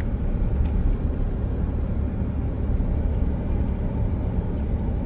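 Steady low rumble of a vehicle on the move, with road and wind noise and no distinct events.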